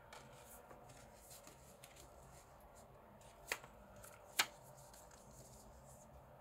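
A CD and its stiff card sleeve being handled: faint rustling and light ticks of card and plastic, with two sharp taps a second apart near the middle.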